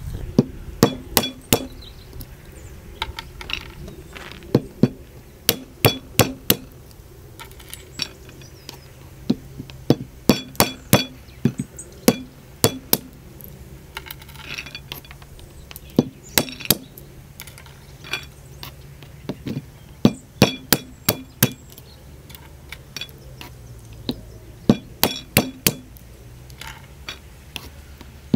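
Walnuts being cracked with a hand-held stone against a flat stone: sharp knocks in quick runs of two to four strikes, repeated every second or two.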